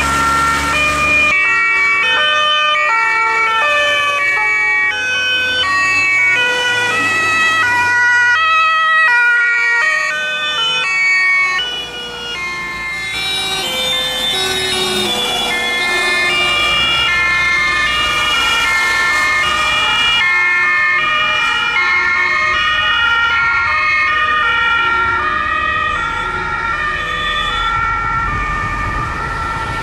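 Several German two-tone emergency sirens (Martinshorn) sound at once, out of step and at different pitches, from a passing convoy of Red Cross ambulances and trucks. Engine noise and tyre hiss on the wet road swell as vehicles pass close by.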